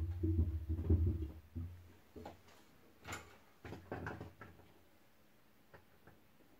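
A metal-framed neon sign being shifted and set down on a workbench: a low rumbling scrape with bumps for about the first second and a half, then a few light clicks and taps as small wiring parts and pliers are picked up.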